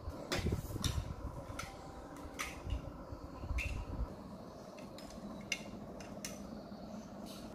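Scattered light clicks and taps of small plastic objects handled on a hard tabletop, with a few low bumps in the first second.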